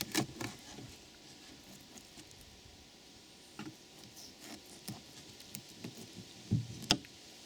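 Knife filleting a perch: scattered small clicks and scrapes of the blade and of the fish being handled, with two sharper knocks near the end.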